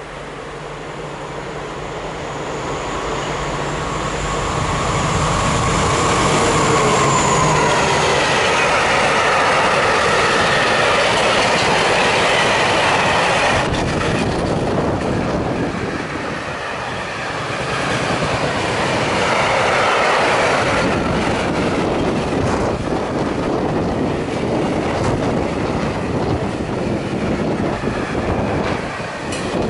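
Freight train hauled by two diesel locomotives passing close by. The locomotives' engine hum and whine grow louder and drop in pitch as they go past about seven seconds in. Then comes the long, steady rumble and clatter of the freight wagons rolling over the rails.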